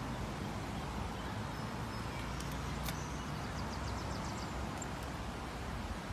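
Steady outdoor background noise, a low rumble under an even hiss, with a few faint high clicks and a brief run of quick faint ticks around the middle.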